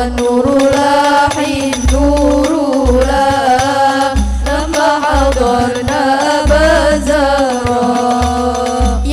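Sholawat, Arabic devotional singing: a single melodic voice with long ornamented phrases over deep, repeated bass beats, played loud through a mosque sound system.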